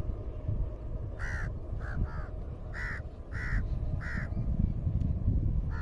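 A crow cawing: about six short, harsh caws in quick succession, starting about a second in, over a low wind rumble on the microphone.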